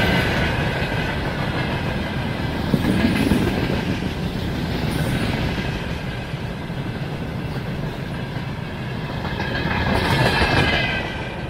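Freight train wagons (hopper, gondola and tank cars) rolling past, wheels clattering over the rail joints with a rumble and rattle. A high squeal from the wheels rises again near the end.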